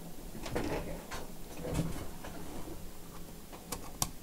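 Scattered light clicks and knocks of a laptop being handled on a workbench, with two sharp clicks near the end.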